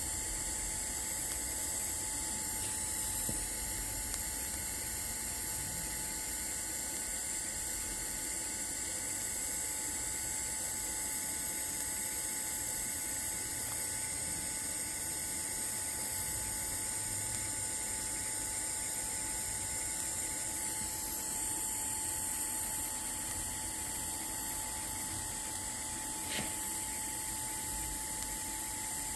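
TIG welding arc on stainless steel pipe, running steadily, with the notched ceramic cup rocked against the pipe as it is walked along the joint.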